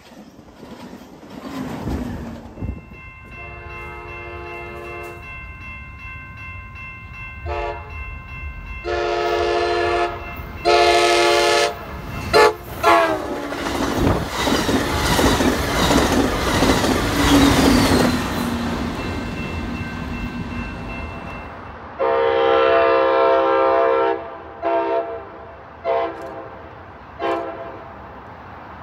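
Amtrak Pacific Surfliner cab car horns, several notes sounding at once. A faint horn comes first, then loud long and short blasts as the train comes in, and the train passes with wheels clacking over the rail joints. Another cab car's horn follows with a long blast and three short toots.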